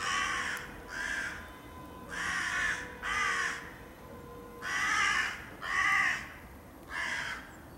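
Crows cawing: seven caws of about half a second each, mostly in pairs, with short pauses between the pairs.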